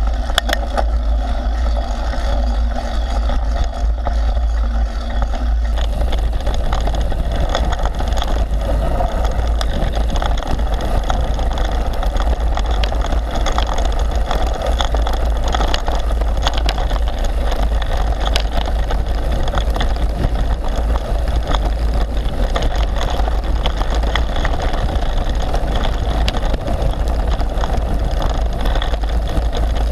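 Wind buffeting a bike-mounted action camera's microphone as a mountain bike rolls fast down a rough dirt-and-gravel trail, with a steady low rumble and many small clatters and rattles from the bike and tyres over the ground.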